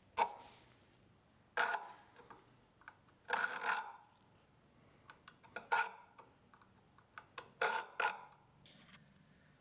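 Checkering file rasping across the spine of a 1075 high-carbon steel knife blade, cutting jimping notches. Five short strokes come about two seconds apart, with small clicks of the file between them.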